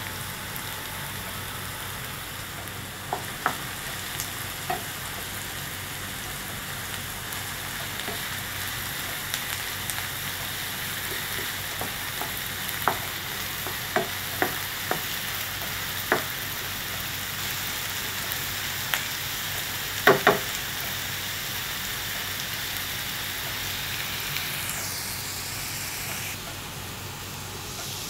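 Chopped onions and green chilli sizzling in hot oil in a non-stick frying pan, a steady hiss. A wooden spatula stirs them, knocking sharply against the pan now and then, loudest as a double knock about two-thirds through.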